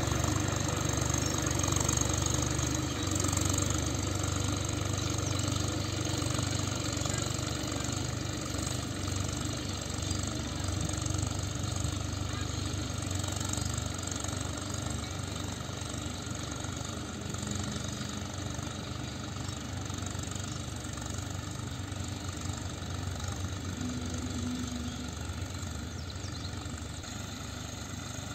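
Tractor engine running steadily under load while pulling a disc harrow through a field, slowly fading as the tractor moves away.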